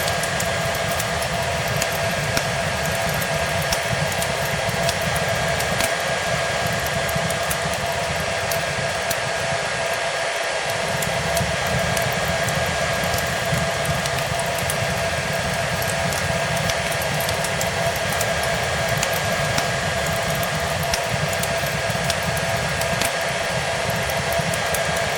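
Hair dryer blowing steadily, a constant rush of air with a steady motor whine, over a fireplace's faint scattered crackles and pops.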